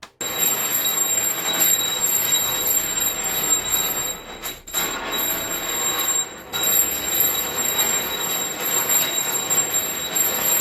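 A bell ringing continuously and loudly, with two short dips, about four and a half and six and a half seconds in, before it cuts off at the end.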